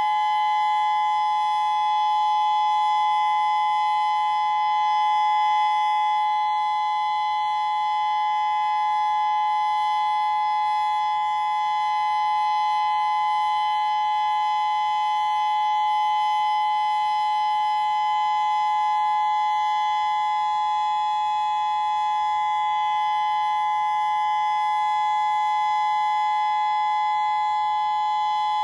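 Federal Signal Modulator II 6024B outdoor warning siren sounding a steady dual-tone chord: two close, slightly clashing pitches held without rising or falling, as in the steady alert signal of a siren test.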